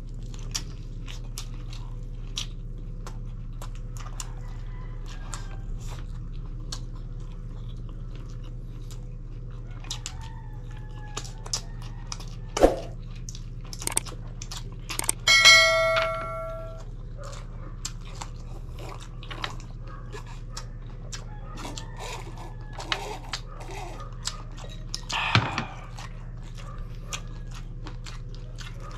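Close-up eating sounds: chewing and wet mouth clicks from grilled chicken eaten by hand, over a steady low hum. About halfway through, a short bell-like chime rings for about a second: the subscribe-button sound effect.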